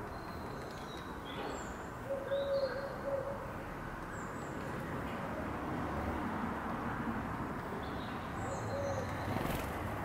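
Garden birds calling: thin high chirps several times, and a short low held call about two seconds in and again near the end, over a steady background rumble.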